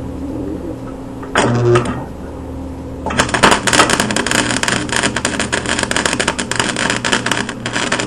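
Electric arc welder tack-welding a steel bracket onto baler sheet metal: a short arc strike about a second and a half in, then from about three seconds in a continuous, loud crackling and sputtering arc.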